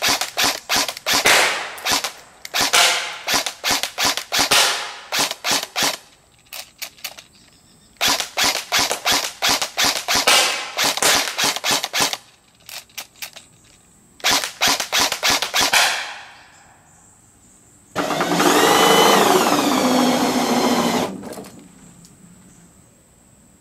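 Airsoft gun firing rapid full-auto bursts of sharp cracks, three long strings with short pauses between. About two thirds of the way through comes a steady whir of about three seconds that sweeps up in pitch at its start.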